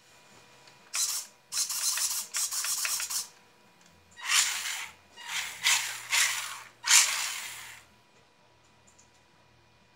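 Small electric RC rock crawler's motor and geared drivetrain whirring in a series of short bursts as it is driven from a gamepad; the bursts stop about eight seconds in.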